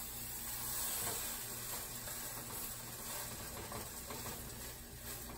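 A rolled breakfast burrito sizzling steadily in a hot skillet, frying closed side down to seal the seam shut.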